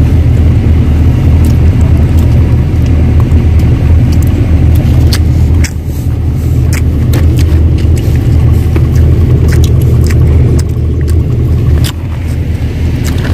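An engine running steadily, a loud low rumble, with scattered light clicks over it.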